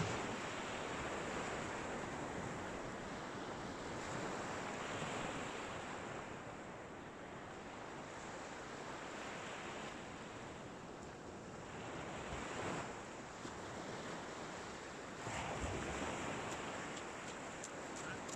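Small waves breaking along a beach, the wash swelling and easing every few seconds. Near the end come a few faint crunches of footsteps on the shingle.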